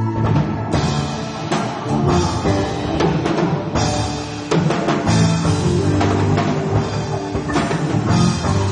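Amateur band playing live: a drum kit with frequent crashes and hits over low pitched notes that change about once a second, with a brief drop in level about four and a half seconds in.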